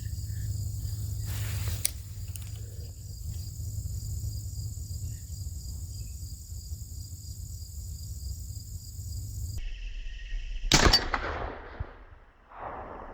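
A single rifle shot about eleven seconds in: one sharp crack with a short trailing echo, fired at a groundhog. Before it, only a steady low background hum.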